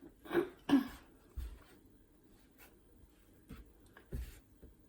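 A person clearing their throat twice in quick succession, followed by a few faint knocks.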